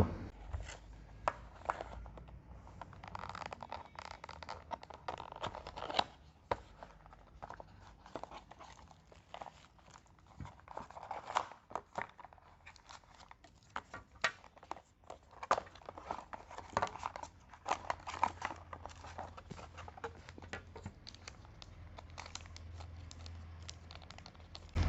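Faint, irregular handling noise: rustling and crinkling with many scattered small clicks, as two mobile phones are taken out and handled.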